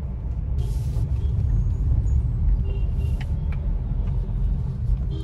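Steady low rumble of a Suzuki car driving slowly in traffic, heard from inside the cabin. A brief hiss comes about half a second in and a fainter one around three seconds.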